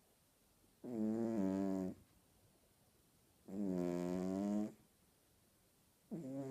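A sleeping cat snoring: pitched, drawn-out snores about a second long, coming roughly every two and a half seconds, two full snores and a third starting near the end.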